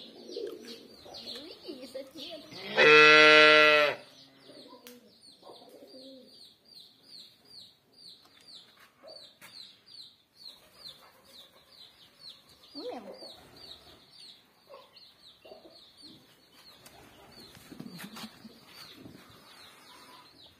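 A single loud, steady moo from cattle lasting just over a second, about three seconds in, over a continuous high peeping of birds at about three peeps a second.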